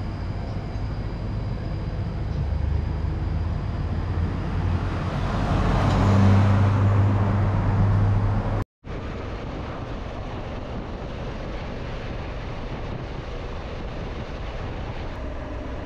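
Road vehicle noise: a low engine hum with tyre and wind rush, swelling louder about six seconds in, breaking off for an instant just before the ninth second, then going on more evenly.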